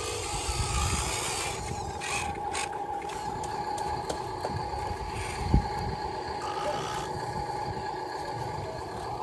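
Electric motors and gears of radio-controlled toy trucks whirring steadily, with a single sharp knock about five and a half seconds in.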